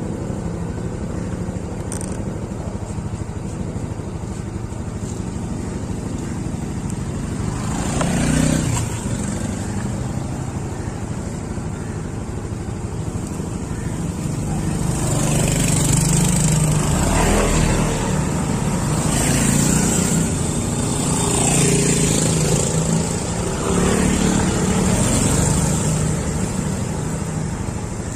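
Motorcycle out on the road, its engine running under steady road and wind noise. The engine sound swells up and back down about 8 seconds in, then swells several more times in the second half, about every two to three seconds.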